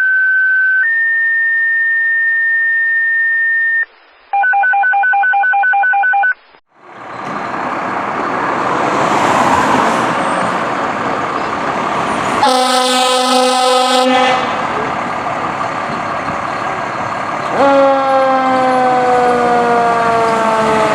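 Fire dispatch alert tones, a steady two-pitch tone then a pulsed tone, before a fire engine pulls out with its engine running. The engine gives one air horn blast about halfway through, and near the end its mechanical Q siren sounds with a falling pitch.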